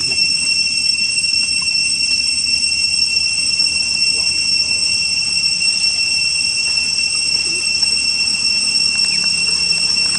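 Cicadas droning steadily at a high pitch.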